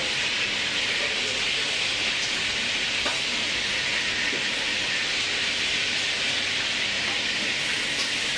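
Steady, even background hiss at a constant level throughout, such as a kitchen extractor or the recording's own noise floor.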